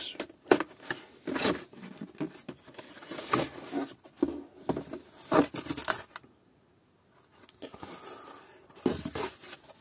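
Hands handling a cardboard box and a hard plastic drill carry case: a series of knocks, scrapes and rustles as the case is slid out of its cardboard sleeve, with a short quiet pause about two thirds of the way through.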